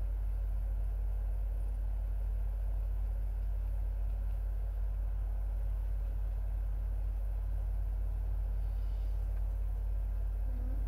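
A steady low hum that holds one level throughout, with a faint hiss above it.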